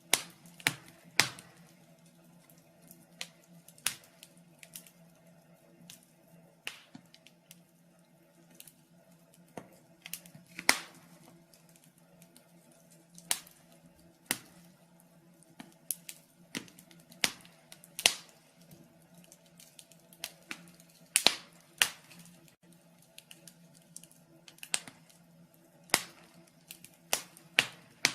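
Wood fire crackling in a fireplace: irregular sharp pops and snaps, roughly one a second and some much louder than others, over a faint steady low hum.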